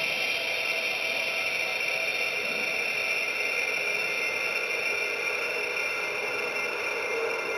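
Experimental noise piece: a dense, steady hiss with a strong high band and a few faint steady tones beneath it, unchanging throughout.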